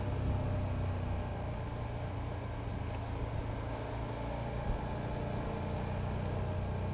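KTM 1290 Super Adventure's V-twin engine running at a steady pace while riding, a low, even drone.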